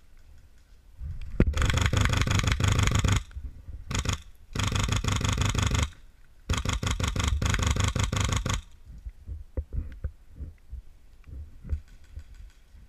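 M4-style airsoft electric gun firing full-auto, a rapid mechanical clatter in four bursts, three of them long and one short, with light scuffs and knocks afterwards. The sound is muffled by the camera's waterproof case.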